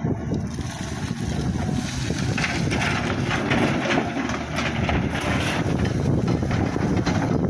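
SANY crawler excavator's diesel engine running under load while its bucket tips soil and rocks into a steel dump truck bed, the load clattering and rattling into the bed from a couple of seconds in.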